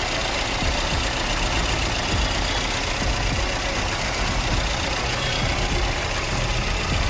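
Mercedes CLA 200's four-cylinder petrol engine idling with a misfire, running steadily but with an irregular low pulsing; the cause is ignition coils 1 and 4 not working.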